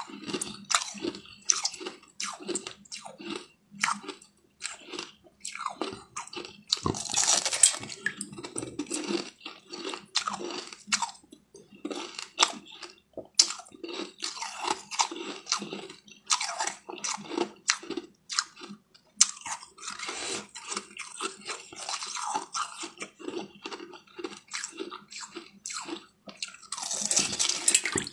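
Close-up crunching and chewing of hard ice: many short, sharp bites and cracks at an irregular pace, with two longer, louder stretches of crackling about seven seconds in and near the end.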